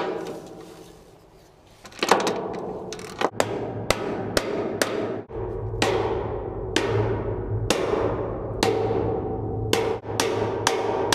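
Hammer blows on steel: a scrap-steel cover plate being driven into place against a steel boat hull, struck at an irregular pace of roughly one to two blows a second, each blow ringing on in the metal. After the first blow there is a pause of about two seconds before the hammering resumes.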